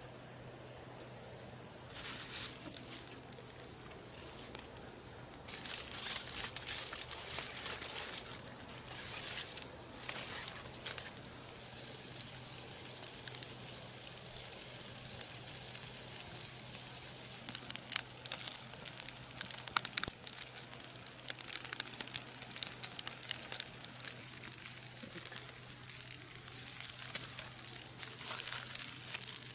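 Irregular crinkling and rustling, starting about two seconds in and coming in uneven spurts with a few sharp clicks, over a steady low hum.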